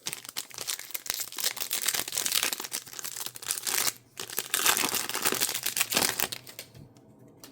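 Plastic trading-card pack wrapper crinkling and tearing as it is ripped open and handled, in two long spells with a short break about four seconds in.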